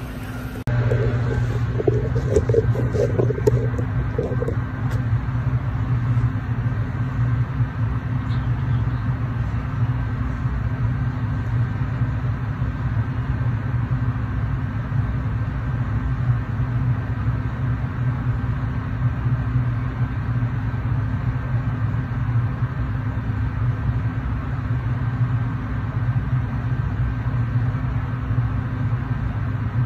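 Steady low machine hum with a rumble underneath, unchanging throughout. In the first few seconds there is some brief rustling and handling.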